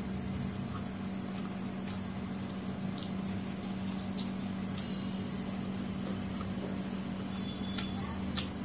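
Steady machine hum in the room with a thin high whine over it, and a few faint clicks from eating and handling food, the sharpest near the end.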